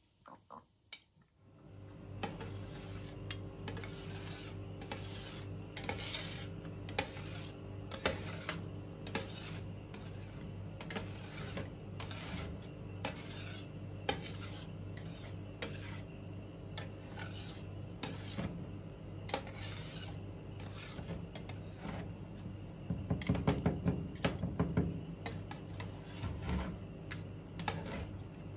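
Metal spatulas scraping and chopping on the steel cold plate of a rolled-ice-cream station, working freezing Pepsi into ice cream. Repeated scraping strokes start about a second and a half in over a steady low hum, with a quick run of louder chopping near the end.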